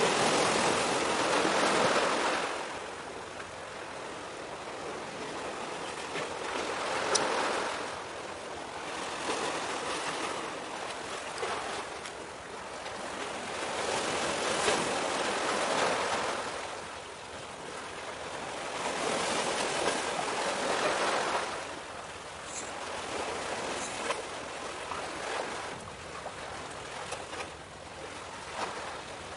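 Sea waves washing in, a rushing sound that swells and fades every few seconds.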